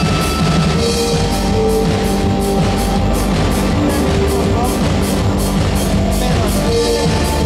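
Live rock band playing: a drum kit keeps a steady cymbal beat under guitars and bass, with held melodic notes over the top.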